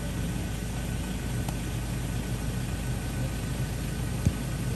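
Car engine and road noise heard from inside the cabin, a steady low rumble, with a single knock about four seconds in.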